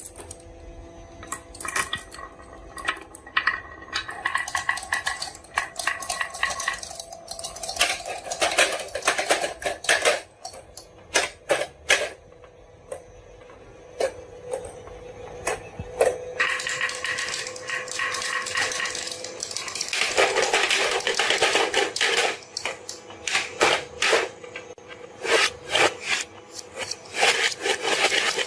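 Marbles rolling and clacking along a marble run, with many sharp clicks and a stretch of dense rattling about twenty seconds in, over faint steady tones.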